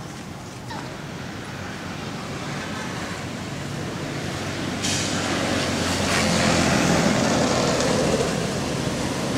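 Engine hum of passing road traffic, growing steadily louder, with a broad rushing hiss joining about five seconds in.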